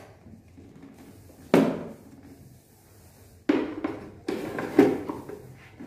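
Knocks of a stainless-steel mixer-grinder jar and its lid being handled and set onto the mixer base: one sharp knock about a second and a half in, then three more in quick succession from about three and a half seconds.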